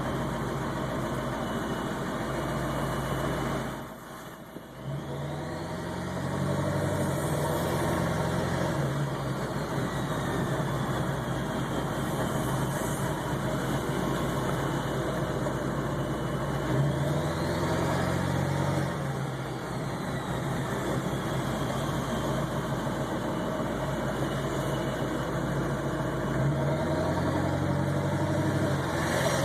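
Ford 7.3 Power Stroke turbo-diesel V8 idling roughly, its engine speed rising and then sinking back about every ten seconds, with a faint whine that rises and falls along with it. This is the surging idle that the owner suspects comes from a bad ICP sensor or fuel pressure regulator.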